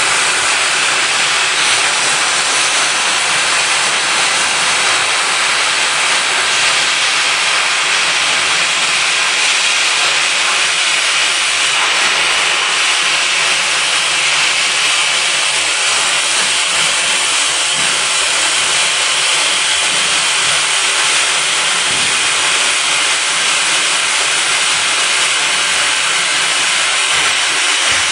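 Friction stir welding machine running its rotating tool through aluminium: a steady, loud hiss without breaks.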